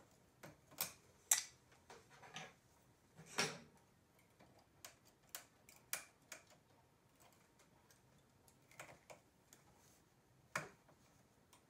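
Scattered light clicks, a few louder than the rest, from hand transfer tools and the metal needles of a knitting machine's needle bed as stitches are lifted, crossed and hung back on the needles.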